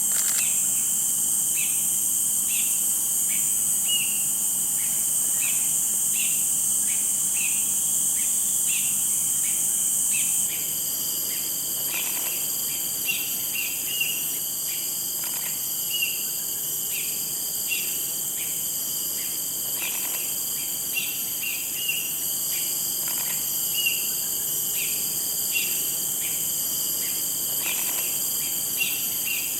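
Cinereous bulbul calling over and over, short notes about one and a half a second, over a steady high-pitched drone of insects. A second steady insect tone joins about a third of the way in.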